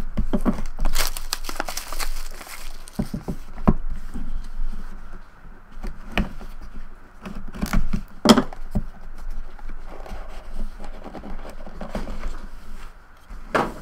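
Rustling, scraping and tearing of a small cardboard card box being cut open with a small knife and its lid lifted, with a few scattered sharp knocks.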